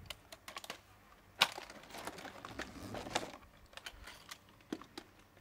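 Plastic clicks and knocks as the octagonal filter housing of a hose-driven automatic pool vacuum is fitted back on and its clips snapped shut. One sharp snap comes about one and a half seconds in, then a run of small rattling clicks.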